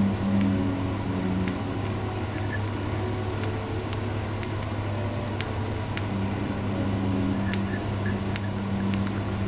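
Cockatiel crunching and nibbling food in its beak: irregular small sharp clicks and cracks over a steady low hum.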